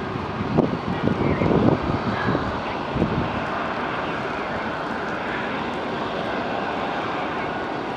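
Twin-engine jet airliner's engines at takeoff power during the takeoff roll on a wet runway, a steady roar with a faint high whine. The first three seconds also carry uneven gusty bumps of noise.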